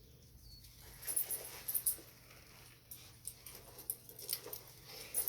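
Small metal clinks and jingles with rustling from a leather costume belt with jewelled fittings being fastened, in short clusters about a second in and again near the end.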